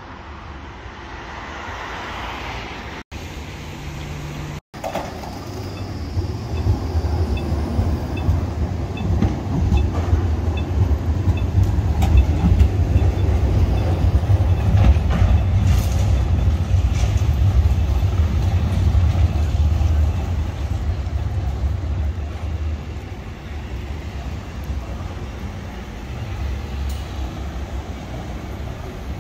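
City tram running on street track: a low rumble builds a few seconds in, holds loud, then eases off toward the end, with a short run of evenly spaced high pips partway through.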